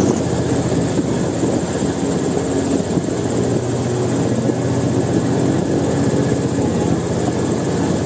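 Airboat's engine and large air propeller running steadily at cruising speed.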